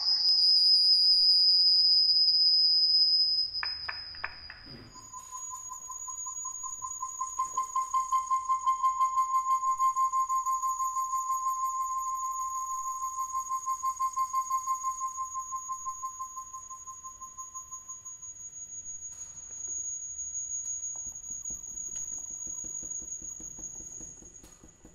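Acoustic feedback from a Skype multi-call between nearby computers, used as experimental music. It is a sustained high whistling tone for the first few seconds. After a short dip, a lower tone that wavers in loudness and a higher steady whistle start together. The lower tone fades out about three-quarters of the way through, and the high whistle carries on.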